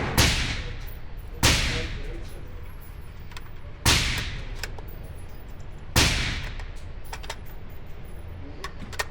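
Gunshots at a shooting range: four single shots, irregularly spaced a second or two apart, each with a long echoing tail. A few faint clicks follow near the end.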